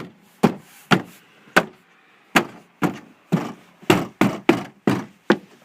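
A hand tapping a trim part on the inside of a Toyota Sienna's rear door back into its clips: about a dozen sharp knocks at an uneven pace, seating the part.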